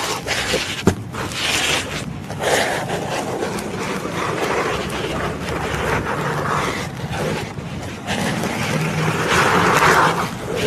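Kinetic sand being cut with a blade: a run of soft gritty scraping strokes that swell and fade, with one sharp tick about a second in.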